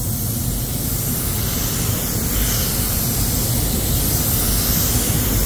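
Iwata W-300 paint spray gun spraying with its regulators fully open: a steady hiss of compressed air atomising paint.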